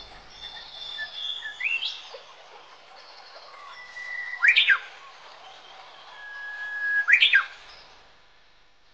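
A bird whistling held notes, each ending in a sharp sweep up and back down, loudest about four and a half and seven seconds in.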